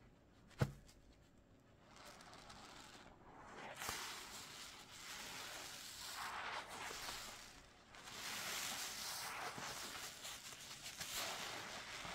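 A sharp click about half a second in, then several seconds of steady scrubbing noise through thick soapy lather made from Fabuloso and dish soap, with a short lull about two thirds of the way through.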